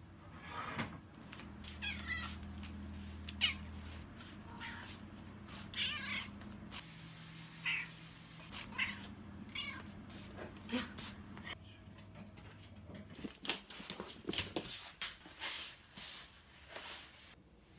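Domestic cat meowing again and again in short, clipped "kwah" calls, about a dozen of them, over a steady low hum. Near the end a run of sharp knocks and rustling takes over.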